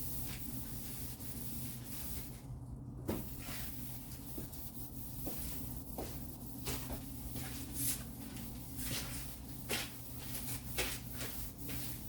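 Tack cloth being wiped over car body panels: soft rubbing with scattered light clicks and knocks. A steady low hum runs underneath.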